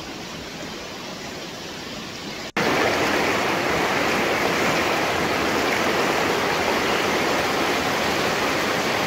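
Steady rush of a rain-swollen river pouring through rocky rapids. It jumps suddenly louder at a cut about two and a half seconds in.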